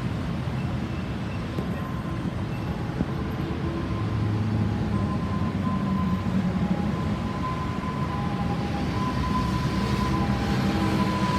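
Steady low rumble of heavy traffic, with a faint ambulance siren tone coming in a few seconds in and growing louder toward the end as a second, lower tone joins it.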